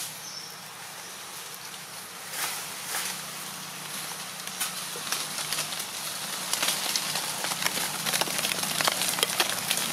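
Dry leaf litter crackling and rustling in quick, irregular clicks that grow denser about halfway through, over a faint steady low hum.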